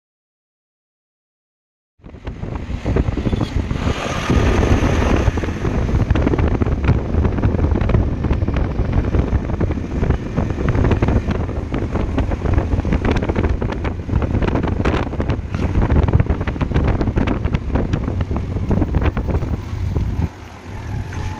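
Wind buffeting the microphone, a loud, steady rumbling rush with crackles, starting about two seconds in after a short silence.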